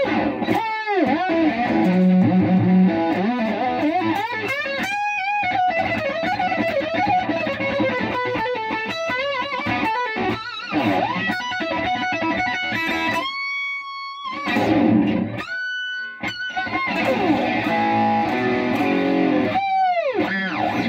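Electric guitar played through a Marshall MG101FX transistor combo amp. It plays fast lead lines full of string bends and vibrato, with two long held notes about two-thirds of the way through and a note sliding down in pitch at the very end.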